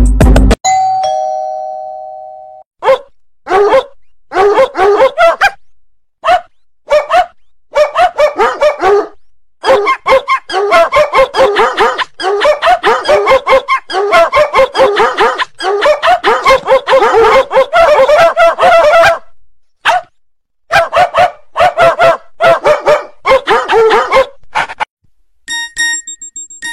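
Two-tone doorbell chime, high note then lower, followed by a dog barking over and over in long bouts with short pauses. A steady electronic beep sets in near the end.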